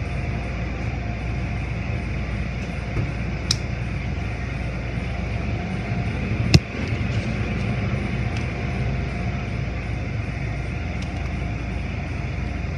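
Automatic tunnel car wash equipment running: a steady mechanical rumble and hiss. A short click comes about three and a half seconds in, and a sharp knock about six and a half seconds in.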